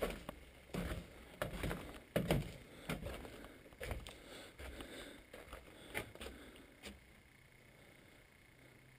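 Footsteps climbing iron stairs: irregular knocks and scrapes about once or twice a second, which die away about seven seconds in.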